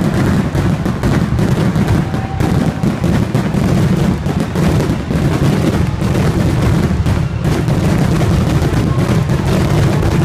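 Fireworks display in a dense barrage: aerial shells bursting in rapid, overlapping booms and bangs, with no break between them.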